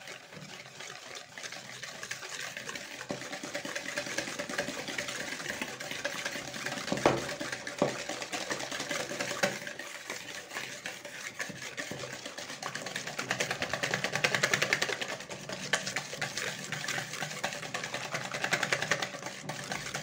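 Wire balloon whisk beating powdered sugar into whipped egg whites by hand: a fast, steady swishing and rattling of the wires in the bowl, with a few sharper knocks against the bowl. The sugar is being whisked in until it dissolves.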